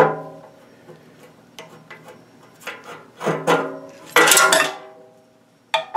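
A screwdriver biting and turning a rusted small Phillips screw that is just breaking loose: several short metallic creaks and scrapes, the loudest about four seconds in.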